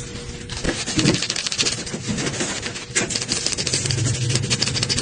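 Rapid, dense scratching and scrubbing strokes against the frame of an iPhone 11 as grime stuck around its edges is cleaned off.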